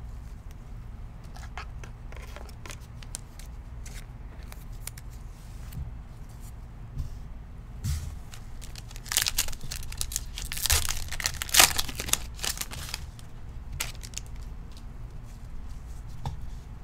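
A trading-card pack wrapper being torn open and crinkled, in a cluster of quick rips about nine to thirteen seconds in, with a few light clicks of cards being handled, over a low steady hum.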